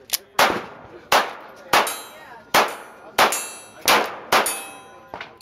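Girsan Yavuz 16 Bora Light 9mm pistol fired in a slow, steady string of about seven shots, roughly two-thirds of a second apart. A thin metallic ringing trails some of the shots.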